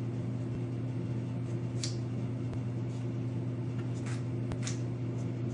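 A few short, light rasps of a flat metal file scraping burrs off a thin styrene plastic part, one about two seconds in and a cluster near the end, over a steady low hum.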